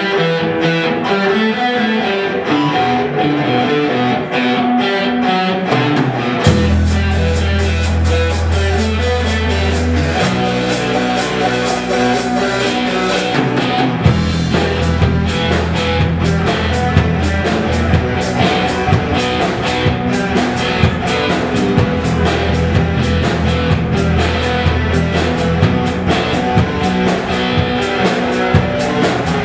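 Live rock band playing loudly: a guitar riff alone at first, then bass and drum kit come in about six seconds in and the full band plays on.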